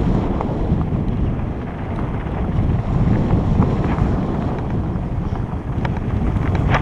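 Wind rushing over a helmet-mounted camera's microphone as a hardtail mountain bike rides along a dirt trail, a steady low rumble with a few sharp clicks, the clearest near the end.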